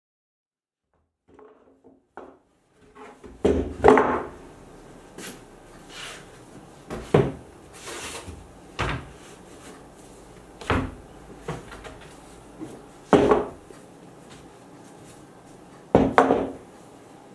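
Wooden knocks as stacks of cedar shingles are stood on end and tapped down on a plywood panel to square them up. There are about six hard knocks a couple of seconds apart, with lighter clatter of shingles between them.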